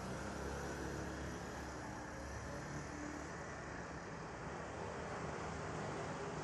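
Steady low background rumble with a faint hiss, even throughout, with no distinct knocks or calls.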